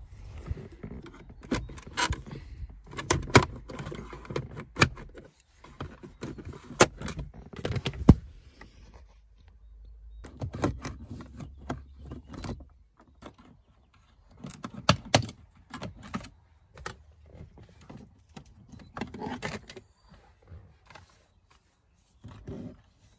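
Handling noise under a car's dashboard: sharp plastic clicks, knocks and scrapes come in bursts as a trim cover is pried off the OBD socket with a plastic pry tool and a fault code reader's plug is fitted. A low hum sits under the first half.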